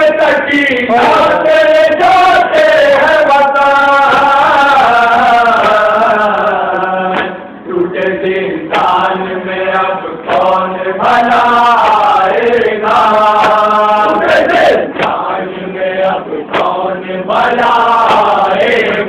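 Men chanting a nauha, a Shia mourning lament: a lead reciter's voice through a microphone with other men's voices joining in, in long sung phrases.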